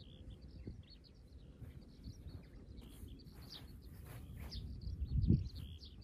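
Outdoor ambience of wind on the microphone, a low rumble, with small birds chirping now and then. The rumble swells briefly about five seconds in.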